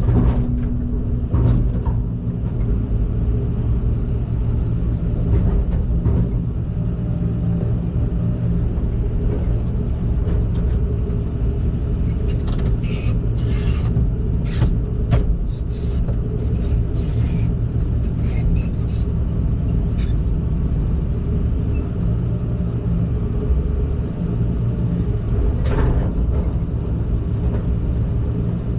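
Heavy machine's engine running steadily with a low, even drone. A run of sharp clicks and rattles comes about twelve to twenty seconds in, and one more near the end.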